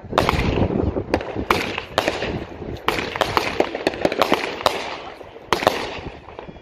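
A 200-gram multi-shot fireworks cake firing, with sharp bangs roughly once a second as the tubes launch and burst, and a rushing hiss between them.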